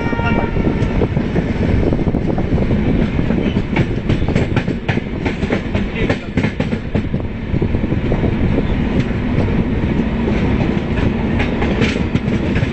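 Rajdhani Express passenger train running at speed, heard from an open coach doorway: a steady rumble and wind rush with wheels clicking over the rail joints. A short horn blast from the locomotive sounds right at the start.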